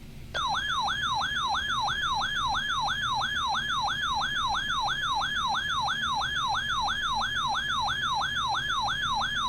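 Weather alert radio's built-in alarm siren sounding, a rapid electronic warble of about three sweeps a second starting just under half a second in: the receiver's alert that a new severe thunderstorm warning is being broadcast.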